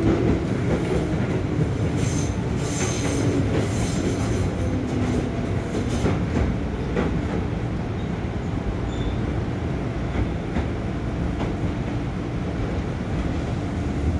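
Interior running sound of a JR East 205 series 1100-subseries electric train, heard from its motor car: a steady rumble of wheels on rail under a faint traction-motor hum. High wheel squeal rises over it for a few seconds near the start, and later come a few sharp clacks.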